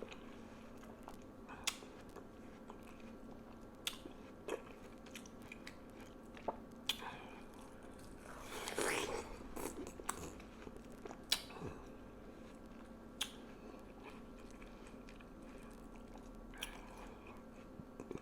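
Close-miked eating of juicy watermelon: wet, crunchy bites and chewing, with scattered sharp mouth clicks and a denser bout of biting and chewing about nine seconds in.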